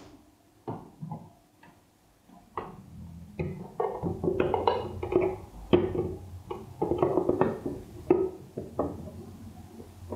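Irregular clicks and knocks of a small plastic aquarium filter being handled and pressed against the glass of a tank. The clatter comes in denser clusters through the middle.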